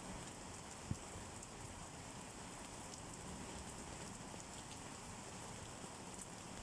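Steady rain falling and pattering on surfaces, with one short low thump about a second in.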